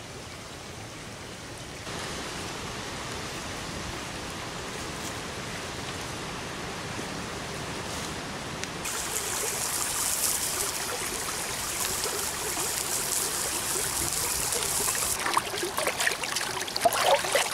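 Shallow creek running over rocks, a steady rushing hiss that grows louder and brighter about halfway through. Near the end comes irregular splashing as a wooden cutting board is rinsed by hand in the water.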